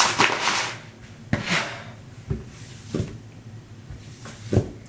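Household objects being handled and set down: a rush of rustling or running noise that fades about half a second in, then a handful of separate knocks and clatters like a drawer or cupboard being shut.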